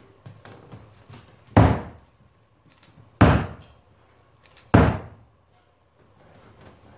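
Three loud knocks, evenly spaced about a second and a half apart, each with a short echoing tail.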